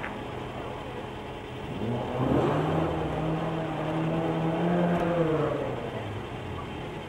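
A rally car's engine under hard acceleration off-camera. It grows louder about two seconds in, holds a steady pitch, then drops away near the end.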